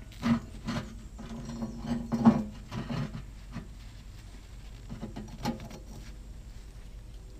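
A magnet wrapped in a paper shop towel being rubbed over the steel bucket and clevis mount to pick up drill shavings: towel rustling and rubbing on the metal, with several light clicks and knocks, most in the first half and a couple more near the end.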